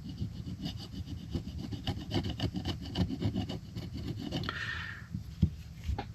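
Gasket scraper scraping old gasket material off an outboard reed plate: a quick, uneven run of short scratchy strokes, metal blade on stuck gasket. The old gasket is being cleared so the plate's sealing edge is clean.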